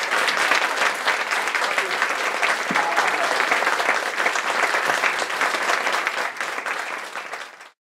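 Audience applauding, a dense steady clapping that eases slightly and then cuts off abruptly near the end.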